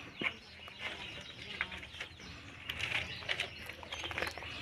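Plastic food packet crinkling as it is held and shifted by hand, in irregular crackles and clicks that are busiest about three seconds in.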